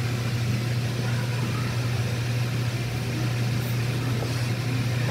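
A steady low hum of indoor background noise, unchanging, with only faint indistinct sounds above it.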